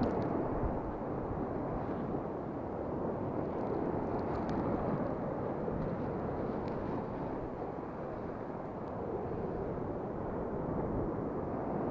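Steady rushing wash of sea surf breaking and washing on the shore.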